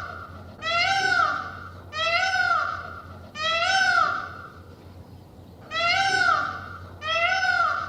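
Flamingo calling, a series of five nasal, arched honks about a second apart, with a longer pause in the middle of the series.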